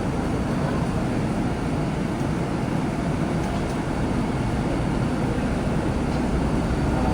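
Steady road and engine noise of a moving taxi, heard from inside the cabin.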